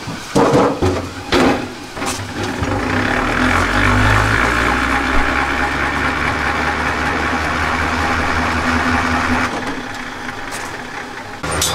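A few sharp knocks of wooden beehive frames being handled, then a machine's motor running steadily with a low hum for several seconds before it fades.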